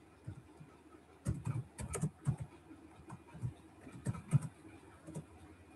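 Computer keyboard keys clicking in an uneven run of keystrokes as words are typed.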